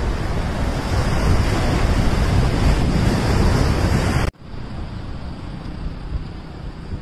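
Wind buffeting the microphone over the rush of sea surf, with a heavy low rumble. About four seconds in it cuts off suddenly and drops to a quieter rush of wind and surf.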